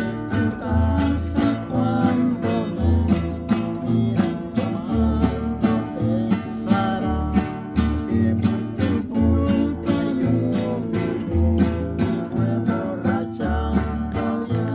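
A song played on strummed acoustic guitar in a steady rhythm, with deep bass notes under it and a wavering melody line over it.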